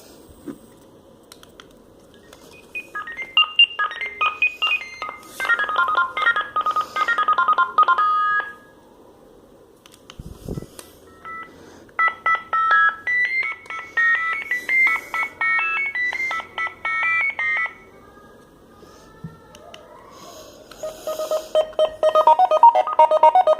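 Sagem MW 3022 mobile phone playing its built-in ringtones through its small speaker: quick beeping melodies, one note at a time, three tunes in turn with short pauses between them. A soft low thump comes in the pause about ten seconds in.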